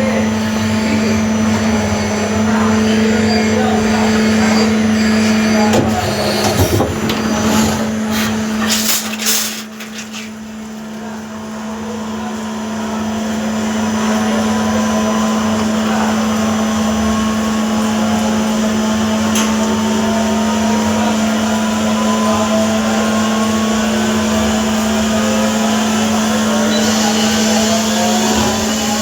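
CNC lathe running while turning D2 tool steel: a steady motor hum and whine, with a few knocks about six to nine seconds in. The sound dips about ten seconds in and builds back up, and a whine rises slowly in pitch toward the end.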